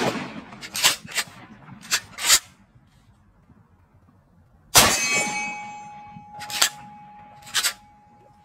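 Shots from a TriStar Cobra III Marine pump-action 12-gauge shotgun firing 3-inch slugs, each followed by metallic clacks of the spring-assisted pump being racked back and forward. It opens on the fading tail of one shot, racks twice about one and two seconds in, fires again about five seconds in with a long fading report, then racks again twice.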